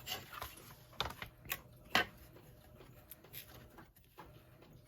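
Scattered light taps and clicks from handling bookboard and measuring tools on a work table, a few in the first two seconds with the sharpest about two seconds in, then only faint ticks.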